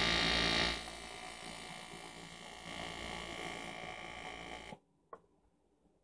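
Argon (TIG) welding arc buzzing steadily, loudest for the first second, then cutting off abruptly near the end as the arc is broken, leaving a few faint clicks.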